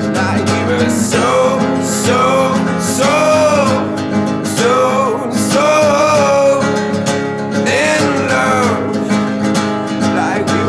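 Background music: strummed acoustic guitar with a melody line that glides in pitch, likely a singing voice.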